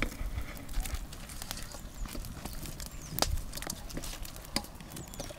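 Fried fish pieces being laid one by one into a large aluminium kadai of simmering curry gravy: irregular small clicks, taps and soft splashes, one sharper click about three seconds in, over a low rumble.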